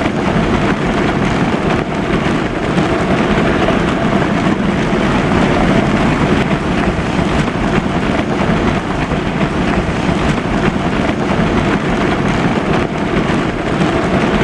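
Steady, unbroken rushing noise of vehicle traffic and wind.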